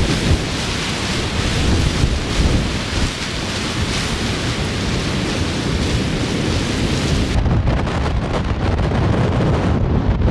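Strong gusting mountain wind, buffeting the microphone with a heavy low rumble under a steady rushing hiss; the hiss thins out about seven seconds in while the rumble carries on.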